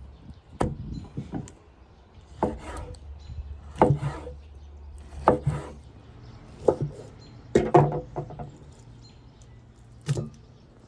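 Knife cutting through kidney and knocking on a thick wooden chopping board, about six sharp knocks spaced a second or more apart. A last knock near the end as the cut pieces are dropped into an enamel bowl.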